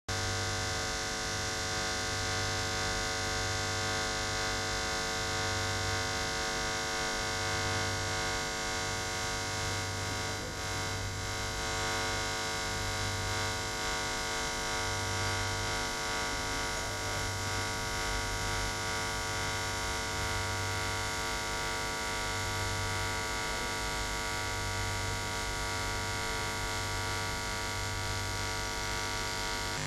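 Steady electrical hum made of many held tones, with a low throb that swells and fades roughly every two seconds.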